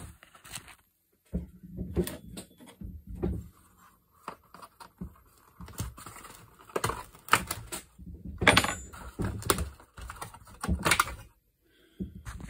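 Irregular knocks, clicks and clatter of plastic as a brushcutter's top cylinder cover is worked loose by hand and its clips are pried free.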